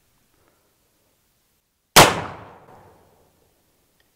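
A single shot from a .44 cap-and-ball percussion revolver (Pietta's 8-inch-barrel Colt copy), fired about two seconds in with a heavy chamber charge of black powder substitute. The sharp bang rings on and fades over about a second.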